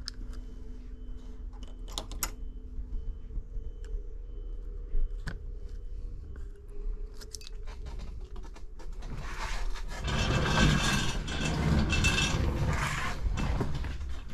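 Small tools and phone parts being handled on a workbench: scattered light clicks and clinks, then about ten seconds in a louder, continuous rustling noise begins.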